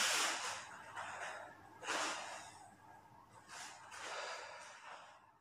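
A karateka breathing hard after finishing a kata: a few strong, hissing exhales a second or two apart, growing fainter toward the end.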